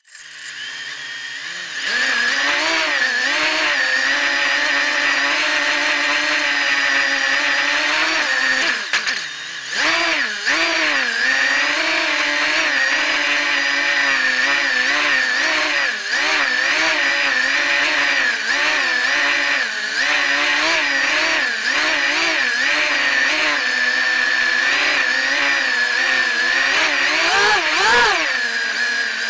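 Cobra 2206 2100KV brushless motors spinning 5045 propellers on a 220-size FPV racing quadcopter in flight, a buzzing whine whose pitch wavers up and down constantly with throttle. It starts softly and comes up to full level about two seconds in, with a brief drop near ten seconds.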